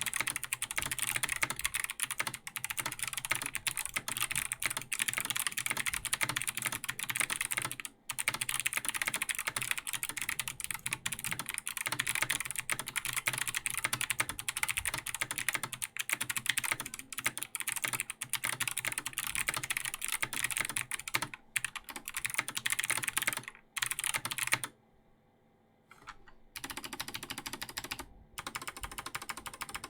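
Fast typing on a Logitech G Pro X mechanical keyboard with clicky Kailh Box Jade switches and ABS keycaps: a dense run of crisp clicks. About 25 seconds in it stops for about two seconds, then the modifier keys are pressed one at a time, sparser and lower-sounding.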